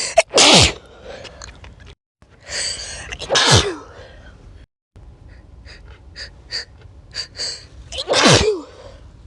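A person's natural sneezes, three of them: about half a second in, about three and a half seconds in, and near the end. Each is a sharp burst after a gasping in-breath, with the voice dropping in pitch. Short quick catching breaths come before the last one.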